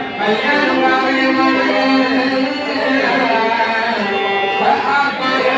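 Carnatic-style devotional bhajan singing with instrumental accompaniment; voices bend between held notes.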